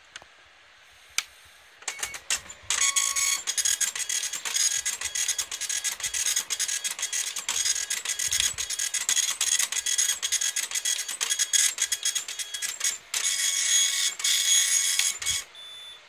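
Epson LQ-870 24-pin dot-matrix printer printing its DIP switch settings page: a loud, high buzzing chatter from the print head as it sweeps across the paper. It starts after a few clicks about two seconds in, pauses briefly near the end, and closes with a short, quieter hum.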